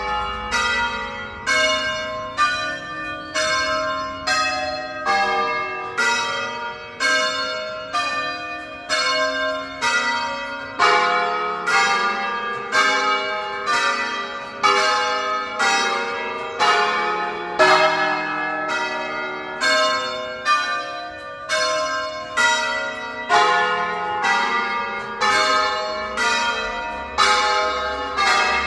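The nine largest bells of a twelve-bell concerto in E-flat, rung by a team of ringers. The bells sound one after another in a steady, evenly spaced sequence of strokes, each note ringing on into the next.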